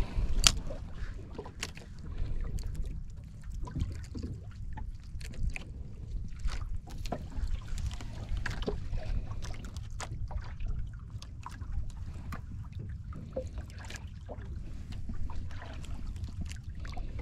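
Steady low rumble of wind and water around a small outrigger boat, with scattered light clicks and knocks from handling a fishing rod and reel.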